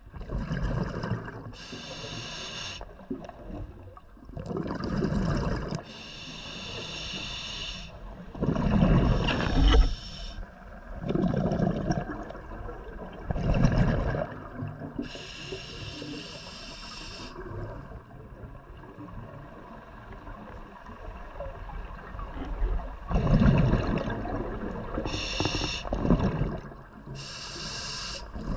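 Scuba diver breathing through a regulator underwater: hissing inhalations through the demand valve alternate with rumbling bursts of exhaled bubbles, every few seconds.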